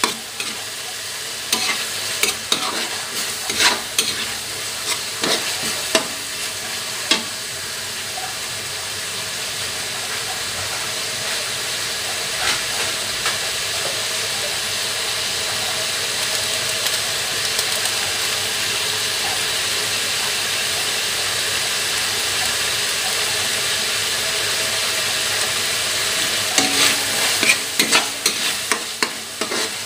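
Canned tuna and tomatoes sizzling steadily in oil in a metal wok, with a metal spatula scraping and clacking against the pan during the first several seconds and again near the end; in between, mostly the steady sizzle.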